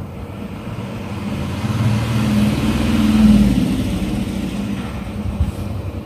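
Low engine rumble of a passing motor vehicle, swelling to a peak about three seconds in and then fading.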